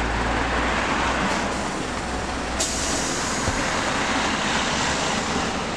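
City minibus idling at the kerb, a steady engine rumble under street noise, with one short click about two and a half seconds in.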